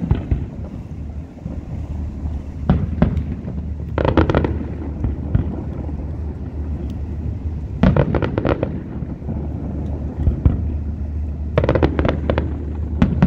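Fireworks shells bursting in quick crackling volleys, one cluster of bangs every few seconds, over a steady low rumble.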